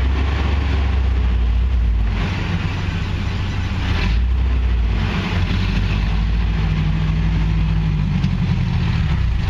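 Off-road vehicle engine running at low revs as the vehicle crawls slowly over the obstacle, the engine note climbing somewhat in the second half.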